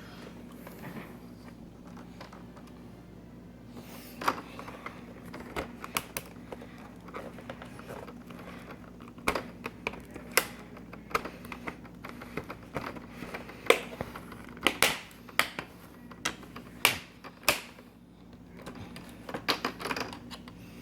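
Plastic snap clips on a laptop's LCD bezel clicking loose as a plastic pry tool works around the frame: a run of irregular, sharp clicks and snaps, sparse at first and coming more often from about nine seconds in. A steady low hum lies underneath.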